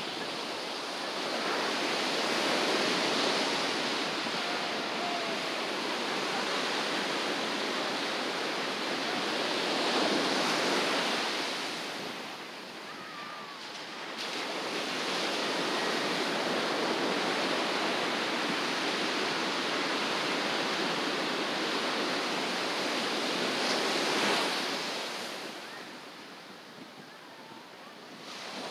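Ocean surf breaking and washing up the beach in long swells, with a lull about twelve seconds in and the wash fading away near the end.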